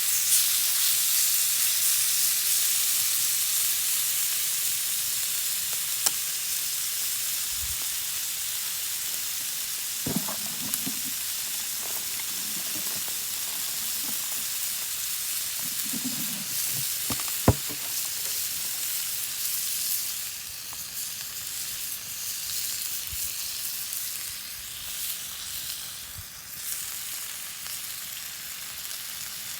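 Food sizzling in a hot pan over a campfire, a steady hiss that fades noticeably about two-thirds of the way through. There are a few sharp pops and a couple of soft knocks along the way.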